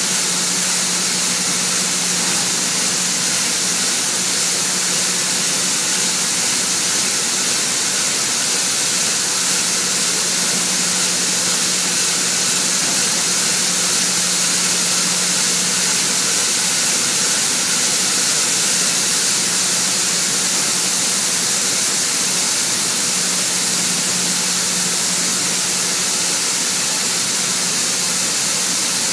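Grain loadout machinery running: a steady loud hiss with a low hum underneath, while golden grain pours from the loadout spout into a hopper-bottom trailer.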